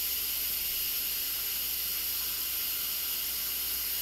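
Instant Pot electric pressure cooker letting off steam through its release valve: a steady high hiss as the pressure is released.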